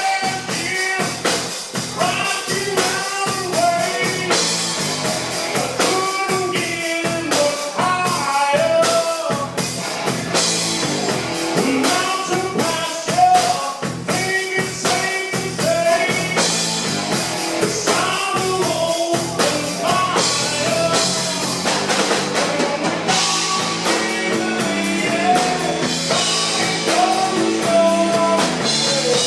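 Rock music with singing, guitar and drums playing continuously.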